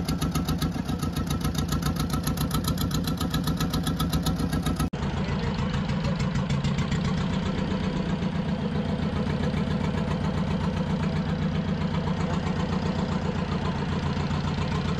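Fishing boat's engine idling, with a steady rapid beat.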